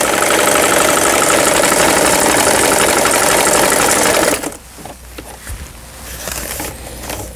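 Janome-made Lion L372 household sewing machine running at speed, sewing a triple straight stitch in a fast, even rhythm, freshly repaired after a broken gear. It stops abruptly about four and a half seconds in, leaving faint clicks as the fabric is handled.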